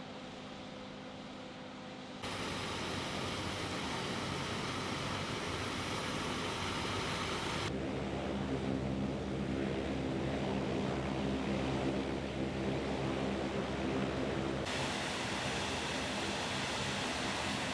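MQ-9 Reaper's turboprop engine running with a steady drone and propeller hum. The sound shifts abruptly three times, about 2, 8 and 15 seconds in, as the footage cuts between shots.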